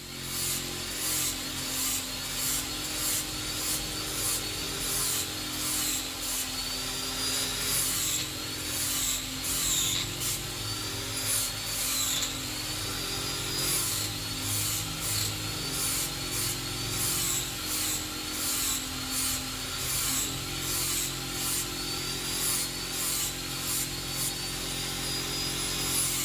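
Power tool running steadily while grinding or sanding the deer-antler knife handle, its pitch dipping whenever the work is pressed against it, with a rasping stroke about twice a second.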